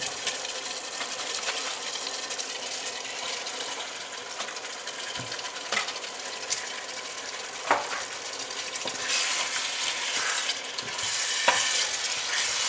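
Raw chicken pieces sizzling in hot oil with onions and spices in a steel pot. The sizzle is steady and swells about nine seconds in, with a few sharp knocks as pieces drop in and a spoon stirs against the pot.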